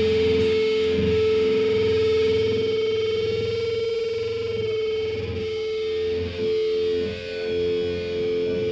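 Distorted electric guitar held on one sustained, steady note through effects pedals, ringing out as feedback after the band stops; it dips briefly twice near the middle.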